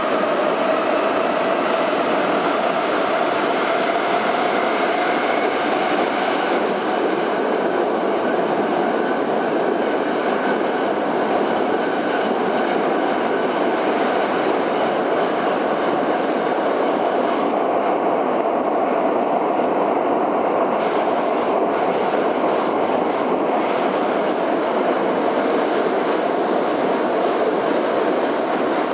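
81-717.5M metro train running at speed, heard from inside the car: a steady loud roar of wheels and running gear on the rails. A whining tone in it falls slightly over the first few seconds.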